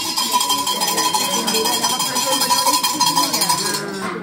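Brass hand bell rung rapidly and without pause: a dense metallic jangle over a steady ringing tone, with a short break near the end.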